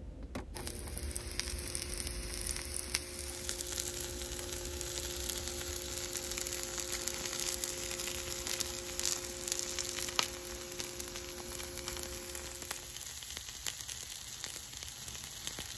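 Quesabirria taco frying in a greased cast iron skillet: a steady sizzle with many small crackles and pops.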